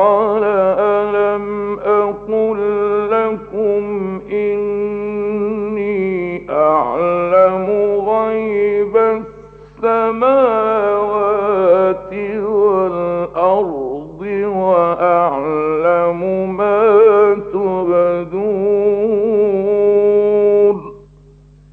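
A solo male voice reciting the Quran in a slow, melodic chanted style. Long, drawn-out phrases waver and ornament in pitch, with brief breaths near the middle, and the voice stops about a second before the end. A steady low hum from the old radio recording lies beneath.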